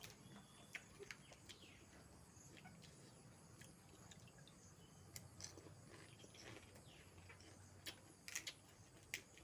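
Near silence with scattered faint clicks and crunches of pani puri being eaten, a few slightly louder near the end.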